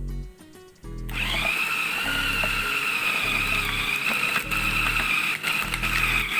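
Food processor motor starting about a second in and running steadily, grinding beef meatball paste mixed with sago flour. Background music with a steady bass beat plays throughout.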